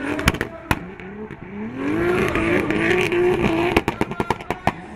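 BMW E30 drift car's engine revving hard while sliding, its pitch rising and then held high for a couple of seconds. Sharp pops and cracks come through it, in a quick cluster near the end as the revs drop.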